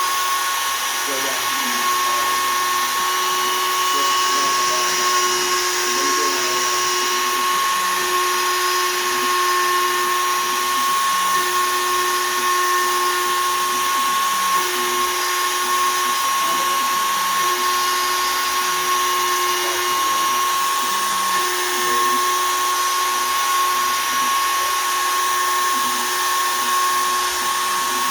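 A Shapeoko 3 XL CNC router's spindle runs steadily at 20,000 rpm while a 1/8-inch two-flute downcut spiral bit cuts poplar. It gives a constant high whine, with a lower cutting tone that keeps breaking off and returning. Under it are shifting, wavering tones from the machine's motors as the cutter moves along its path.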